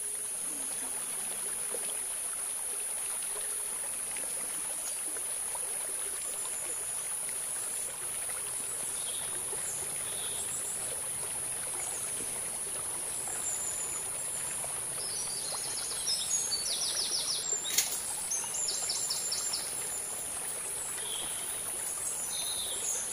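Forest ambience: a steady high-pitched insect drone with scattered bird chirps. A little past the middle, two runs of rapid trilled calls come in, and a single sharp click sounds once.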